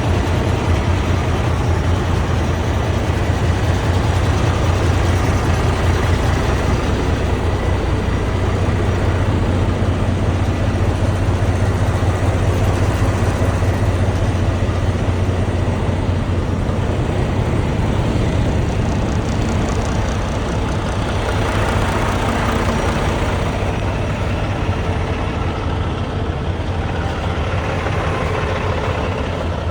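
Large vehicle engine idling steadily, with a deep constant hum.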